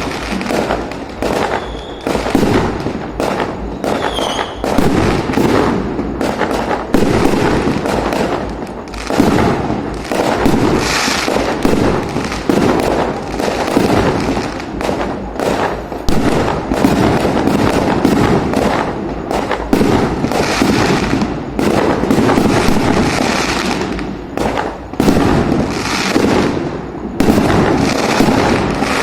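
Fireworks going off in a dense, continuous barrage of bangs and crackles with no let-up.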